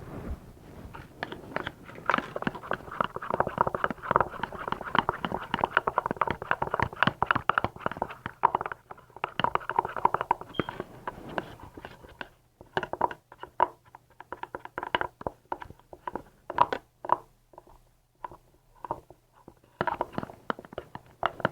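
Slime mixture being stirred in a plastic container: fast, dense scraping and crackling clicks for about the first half, then slower, separate strokes.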